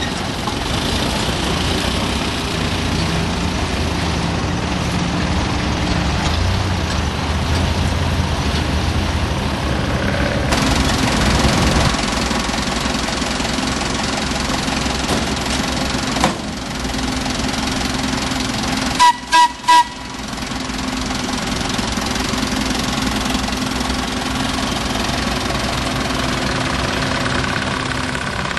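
Engine of a small Brookville industrial locomotive running steadily as it moves along narrow-gauge track. About two-thirds of the way through, its horn gives three short toots.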